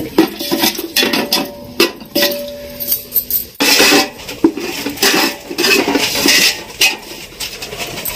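Metal ladle clinking, knocking and scraping against a large aluminium pot as cashew nuts are stirred in hot oil, in many sharp irregular strikes. After a cut about three and a half seconds in, a hiss joins the clinks.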